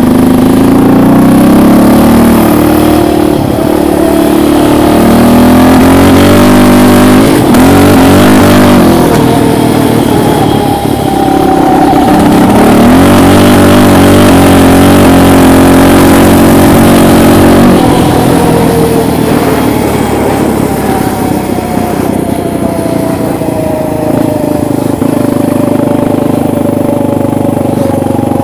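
Yamaha Raptor 700 ATV's single-cylinder four-stroke engine ridden hard, revving up and pulling through several gear changes. It holds high revs for several seconds, then winds down in a long, slow fall in pitch as the quad slows.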